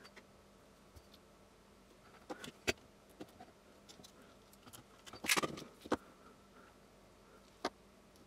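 Light clicks and taps of metal multimeter probe tips and handling against a pack of cylindrical battery cells, scattered and irregular, busiest a little past halfway with one last sharp click near the end.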